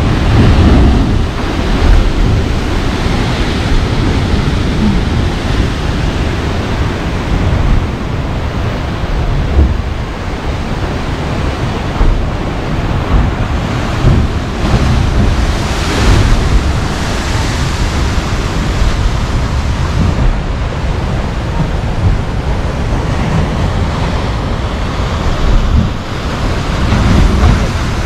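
Heavy Pacific surf crashing and churning into a narrow basalt rock chasm, swelling loudly every few seconds as waves burst into spray, with wind rumbling on the microphone.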